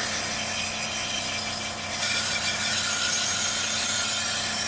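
Mobi V17 rechargeable portable pressure washer spraying a muddy bike frame: the pump's steady hum under the hiss of the water jet, a little louder from about two seconds in.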